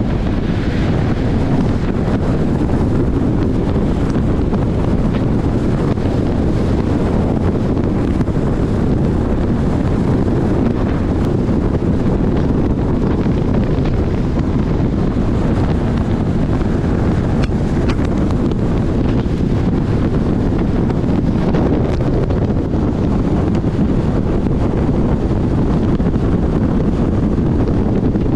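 Wind rushing over the microphone of a moving 1964 MG Midget: a steady, loud, low rumble, with the car's running noise beneath it.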